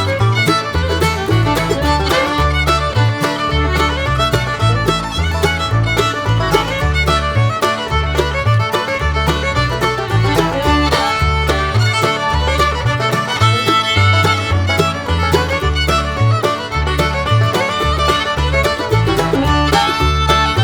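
Background music: an upbeat instrumental with a steady beat and a moving bass line.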